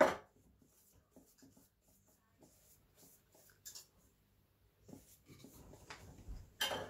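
Pastry brush spreading melted butter over thin filo pastry sheets: soft, intermittent brushing and light scraping strokes, with a slightly louder stroke near the end.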